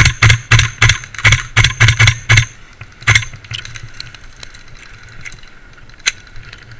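Airsoft gun firing a rapid string of shots, about three or four a second for the first two and a half seconds, then a single shot about three seconds in and a faint click near the end.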